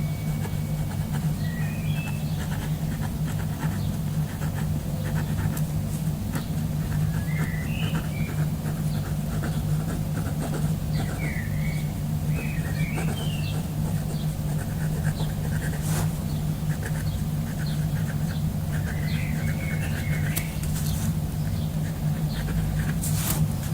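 Birds chirping in short scattered calls over a steady low hum, with faint ticking and a couple of sharper clicks, one about two-thirds of the way through and one near the end.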